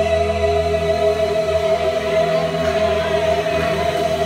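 A woman and a man singing a gospel duet, holding one long closing note in two-part harmony, the two pitches steady throughout.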